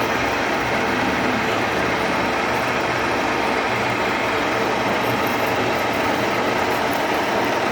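Lathe running, a steady, unbroken mechanical noise.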